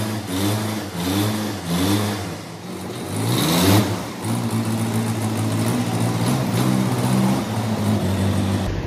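Mahindra 475 DI tractor's diesel engine revving up and down in quick repeated surges for about four seconds, with a louder burst near the end of that stretch, then running steadily as the tractor pulls forward.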